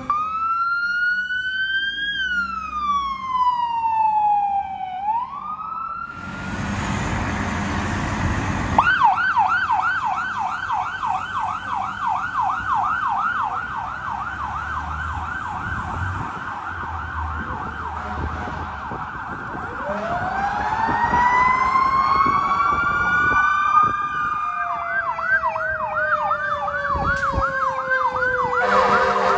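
Fire apparatus sirens on emergency runs. A wail rising and falling gives way to a fast, rapidly repeating yelp. Later another wail winds up, and the yelp returns with a second siren's tone sliding down beneath it.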